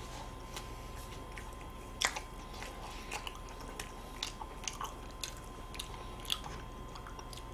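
Quiet biting and chewing of Cookie-O ice cream sandwiches, chocolate cookie wafers around ice cream, heard as scattered soft crackles and clicks. The sharpest crackle comes about two seconds in.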